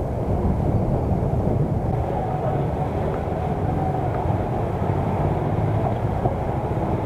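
Muffled, steady rumble of wind and road noise from riding a bicycle through city traffic, picked up by the action camera's own microphone because the external microphone had switched off.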